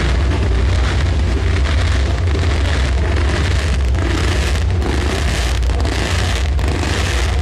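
Firecrackers and fireworks going off as a dense, unbroken crackle of small bangs that run together, over a strong low rumble.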